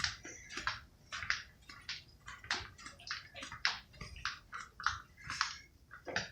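An irregular series of short scuffing, splashy sounds, two or three a second, like several people's footsteps walking on a hard, gritty or damp floor.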